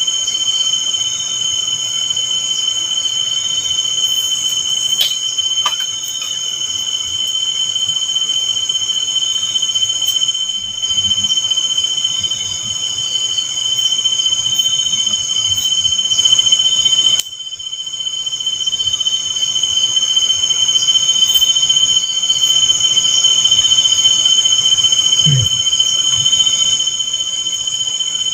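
Night insects trilling in a steady, shrill, high drone on two pitches, cutting out for a moment about two-thirds of the way through.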